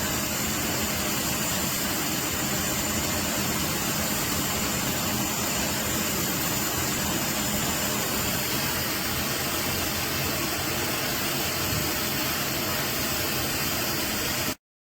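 Russell Hobbs Compact XS 700 W bagless cylinder vacuum cleaner running steadily: a loud rushing motor and airflow noise with a thin high whine, cutting off abruptly near the end.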